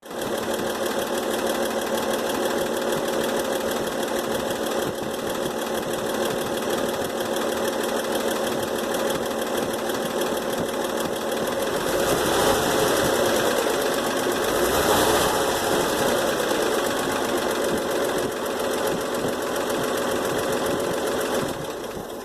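A 1962 Chevrolet K20 pickup's six-cylinder engine running steadily with a fast, busy mechanical chatter. It gets louder for a few seconds around the middle and stops shortly before the end.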